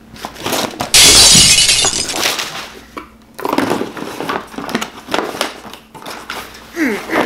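A sudden loud crash with a glassy, shattering sound about a second in, fading over about a second. After it comes a stretch of paper rustling and crinkling as a sheet of packing paper and cables are handled.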